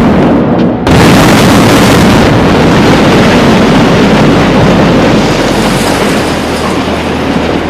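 Building coming down in a demolition: a sudden loud blast about a second in, then a long, heavy rumble of collapsing structure and falling debris that slowly fades.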